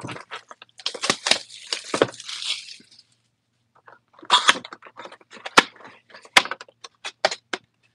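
Plastic shrink wrap crinkling and tearing off a cardboard trading-card hobby box for about three seconds. After a short pause comes a run of sharp cardboard clicks and snaps as the box is opened.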